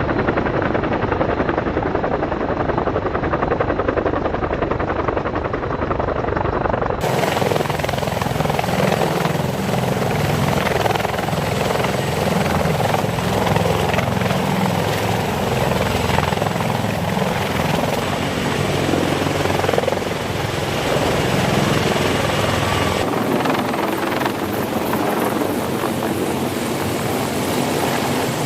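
CH-53 heavy-lift helicopter running, its rotors and turbine engines making a steady loud noise. The sound changes abruptly about 7 seconds in and again about 23 seconds in, where different recordings are cut together.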